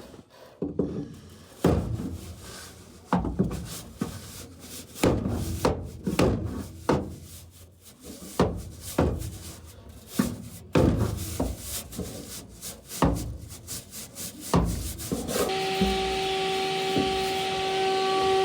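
Irregular knocks, scrapes and rubbing as the furnace cabinet's metal panels are handled to get at the A-coil. Near the end a loud, steady motor whine with hiss starts and holds.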